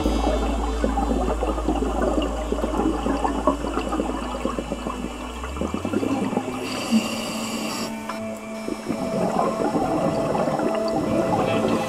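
Scuba breathing underwater: gurgling, bubbling exhaust from a diver's regulator, with a hiss lasting over a second just past the middle. A low steady hum runs underneath and steps up in pitch about halfway.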